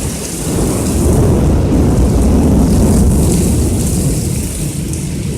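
Torrential thunderstorm rain pouring steadily, with a deep, loud rumble of thunder that swells during the first few seconds.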